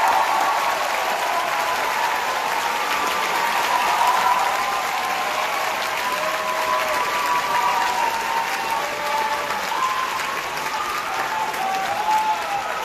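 Large audience applauding steadily for several seconds.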